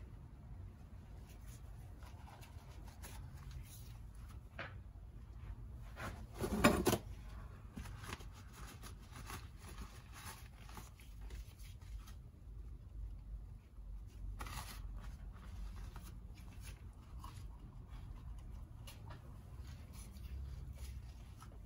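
Faint handling noises as rear-shock air-can parts are cleaned by hand: light rubbing and small clicks, with one louder scrape about six and a half seconds in, over a low steady hum.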